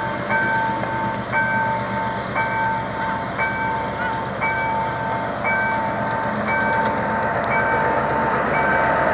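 Level-crossing warning alarm sounding a repeating electronic tone pattern about once a second, over the steady running of a GM G22W diesel-electric locomotive's EMD 12-cylinder two-stroke engine as it pulls a passenger train away from the station.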